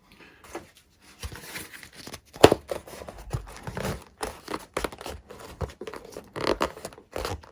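Hands handling and test-fitting pieces of an EPP foam model plane: irregular rustling, scraping and small knocks, with one sharper knock about two and a half seconds in.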